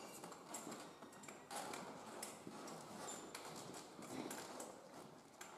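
Scattered knocks and clacks of a competitor moving across ninja obstacle course equipment, over a faint hall murmur.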